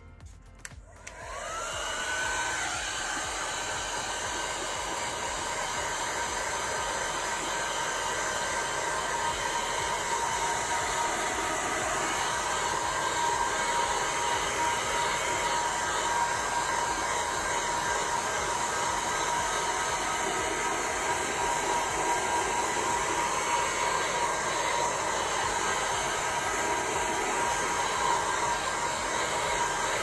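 Electric heat gun switching on about a second in, its motor whine rising as it spins up, then blowing steadily with a constant fan hiss and tone. It is being passed over freshly poured epoxy resin to warm it and pop surface bubbles.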